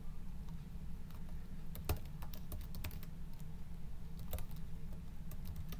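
Computer keyboard being typed on at an irregular pace: a scatter of sharp key clicks over a low, steady background hum.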